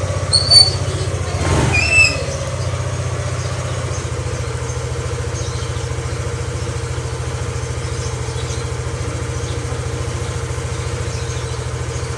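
Motorcycle engine idling steadily, a low even putter. Two short high-pitched squeaks come in the first two seconds.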